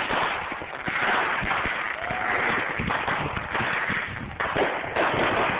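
Consumer fireworks going off: a dense, steady crackling with many small pops, and sharper bangs about 4.5 and 5 seconds in.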